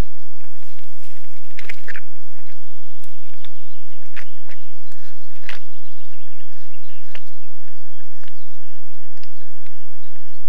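Moose drinking and licking at a muddy puddle: irregular short wet clicks, with faint bird calls behind.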